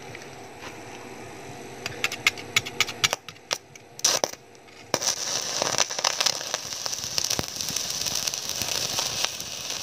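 Stick (SMAW) arc welding with an inverter welder on steel angle: scattered crackles and pops from about two seconds in as the electrode is struck, then from about five seconds in the steady crackling hiss of a held arc.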